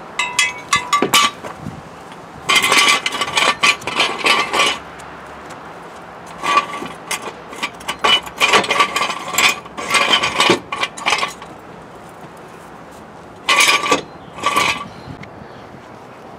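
Metal clinking and clanking in four bunches of sharp clicks with short ringing notes: steel jack gear, a jack stand and floor jack, being handled and set under a car's sill.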